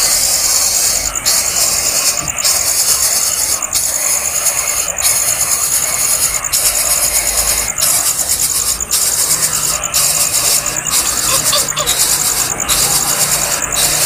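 Nestlings giving loud, raspy, high-pitched begging hisses, broken by short pauses about once a second.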